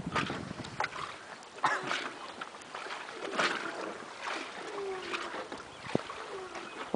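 Water splashing and lapping close to the microphone in irregular bursts, with wind gusts, as a kayak is out on choppy open water.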